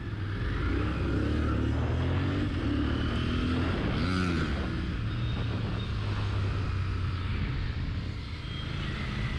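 Motorcycle riding at road speed: a steady low engine drone with wind noise on the helmet microphone. Other motorcycles are riding close by, and there is a brief rise and fall in engine pitch about four seconds in.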